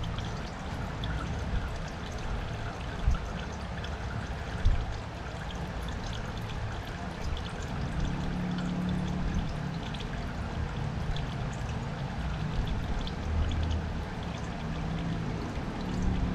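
Warm, thin used engine oil pouring steadily out of the open drain hole of a 2015 Yamaha R25's crankcase, with two brief knocks about three and four and a half seconds in.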